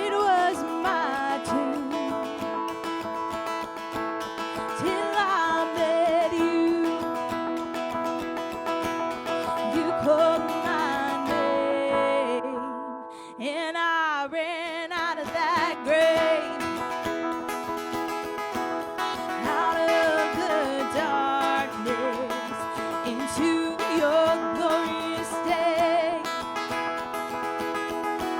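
A worship song with acoustic guitar and a singing voice.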